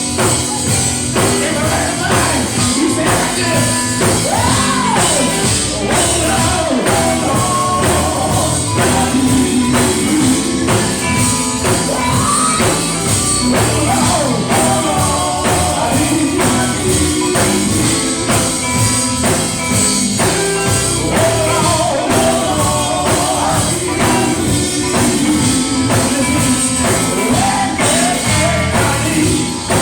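Live gospel music: a group singing over a band with drums and a steady, loud beat.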